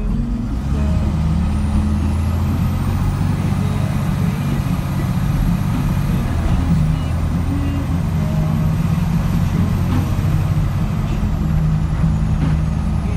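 Engine and road noise inside a moving vehicle's cabin: a steady low drone.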